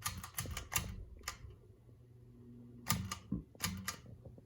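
A series of sharp clicks in two groups, about five in the first second and a half and four more about three seconds in, over the faint steady hum of a ceiling fan motor: the fan's switches being worked to change it over to reverse.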